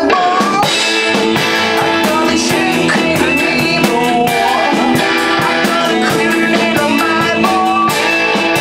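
Live rock and roll band playing loud: electric guitars and bass over a drum kit keeping a steady beat.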